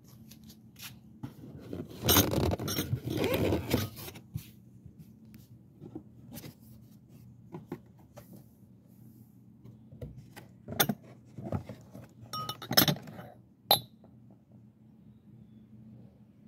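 Cardboard box flaps and inserts rustling and scraping as a box of Libbey stemmed glasses is opened, then a few sharp clinks of the glass goblets knocking against each other and the box as one is lifted out, the loudest clinks about two-thirds of the way through.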